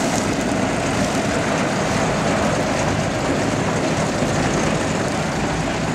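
Old Aktiv combine harvester running, its Perkins diesel engine and threshing gear making a steady mechanical din.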